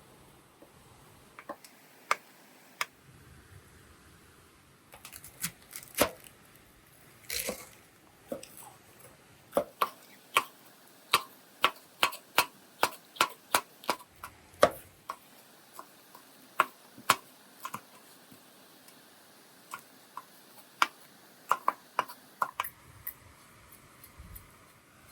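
A series of sharp taps and knocks, scattered at first, then a quick, fairly even run of about two a second in the middle, then sparser again.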